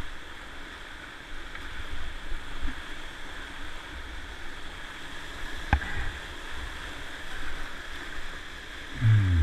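Whitewater rapid rushing steadily around a kayak running down through it, with a low rumble. A single sharp knock comes about halfway, and a short, loud, low sound falling in pitch comes near the end.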